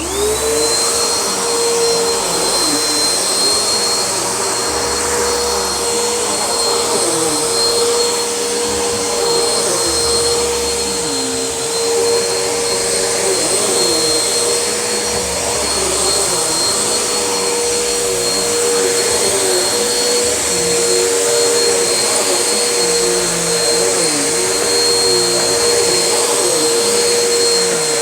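Vacuum cleaner switched on, its motor spinning up within half a second to a steady whine, then running loud and even with a slight wavering underneath.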